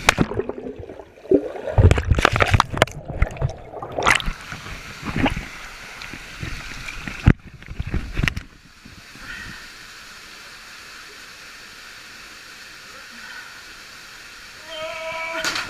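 Water splashing and sloshing with irregular knocks and thumps for the first few seconds. A sharp click comes about seven seconds in, then the steady rush of flowing water, with a voice near the end.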